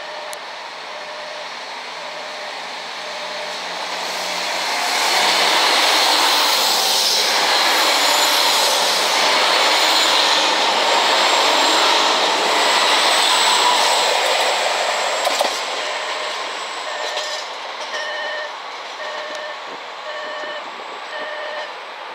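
KiHa 261 series diesel multiple unit running past close by along the platform: its engines and wheels grow loud about four seconds in, stay loud for about ten seconds, then fade. A repeating electronic warning beep, about one a second, sounds at the start and again from about two-thirds of the way through.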